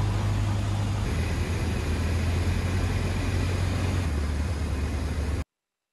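Cessna 152 cockpit noise: the four-cylinder Lycoming engine and propeller droning loudly with a rush of air in flight. The low drone drops a step in pitch about a second in and again about four seconds in, then cuts off abruptly near the end.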